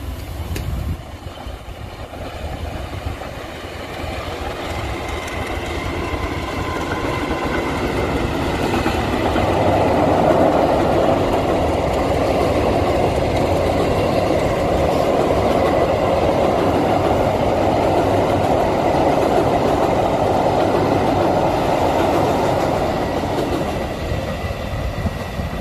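Passenger train hauled by a diesel locomotive passing close by: the engine and the rumble of wheels on the rails grow louder over the first several seconds, hold steady and loud as the coaches roll past, and begin to ease off near the end.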